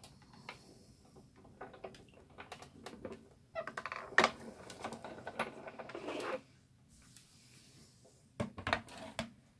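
Sizzix Big Shot Plus die-cutting machine being hand-cranked, its rollers drawing the cutting plates through under pressure. Scattered clicks come first. About three and a half seconds in, a louder, denser stretch with one sharp click lasts nearly three seconds, and a few more clicks come near the end.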